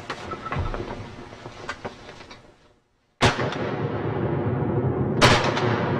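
Two shotgun blasts about two seconds apart, each sudden and loud with a long fading tail.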